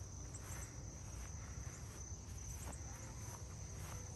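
Steady insect chorus, a continuous high-pitched trill of crickets, with faint footsteps on grass.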